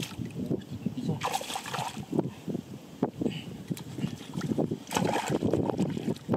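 Shallow muddy water splashing and sloshing in irregular bursts as it is worked by hand and with a long-handled digging tool.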